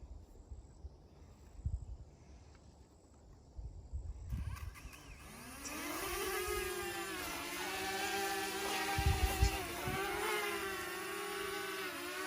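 Wind buffeting the microphone, then about five seconds in a DJI Mavic Mini quadcopter drone's propellers spin up with a rising whine and settle into a steady buzz that wavers slightly in pitch as it flies in the wind.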